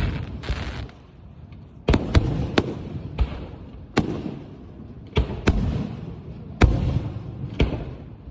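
Fireworks going off: a string of about ten sharp, irregularly spaced bangs, each followed by a low rumble and a fainter crackle. There is a short lull about a second in.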